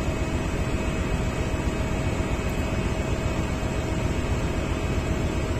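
Steady machinery noise of a ship's engine room, with a faint steady tone running through it.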